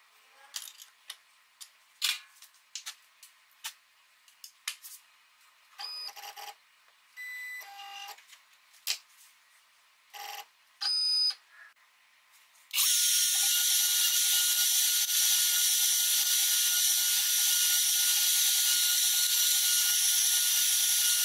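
Scattered clicks and brief whirring bursts as the CNC's cutting bit is changed and set up. About thirteen seconds in, the trim router spindle starts and runs steadily at high speed with a high whine, carving a relief into a wooden block.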